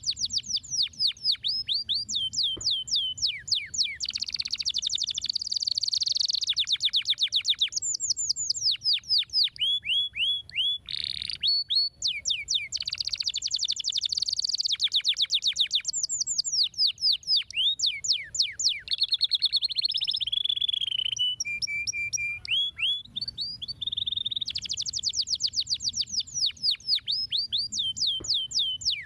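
Domestic canary singing a continuous song of fast trills: runs of rapidly repeated falling notes and rolls, phrase after phrase, with a brief held note about three quarters of the way through.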